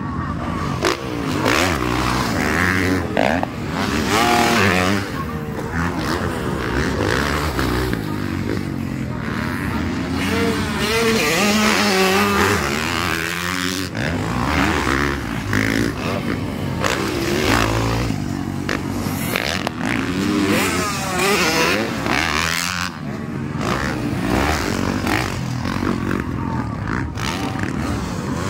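Motocross dirt bikes racing, their engines revving up and down over and over as the riders accelerate and take jumps.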